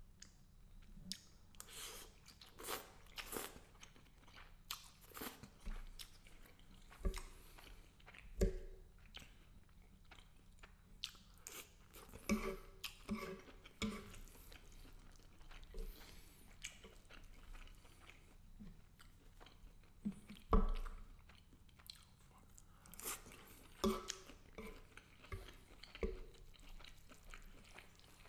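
A person chewing and biting garlic butter shrimp and angel hair pasta, close to the microphone: irregular chewing and clicking mouth sounds. One louder knock comes about three-quarters of the way through.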